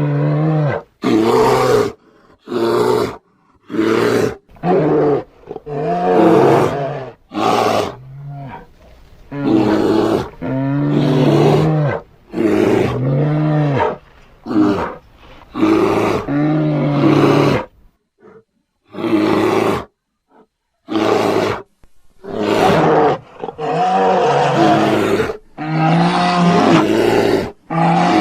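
Cartoon bear roar and growl sound effects, built from library recordings of bears, a lion and a tiger, played one after another as a string of separate calls, each half a second to two seconds long with short gaps between. Around two-thirds of the way through there is a stretch of a few seconds with only small fragments.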